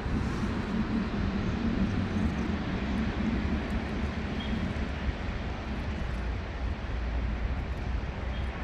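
A steady low background rumble with a constant low hum in it, unchanging throughout.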